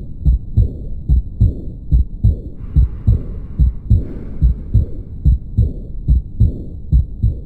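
Recorded human heart sounds: a regular run of low thuds, about three a second, paired into heartbeats. A faint hiss comes and goes in stretches of about a second.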